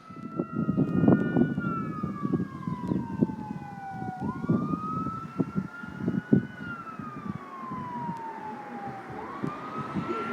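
Fire engine siren wailing. Each cycle jumps up quickly and then slides slowly down, repeating about every five seconds, over a low, irregular rumble.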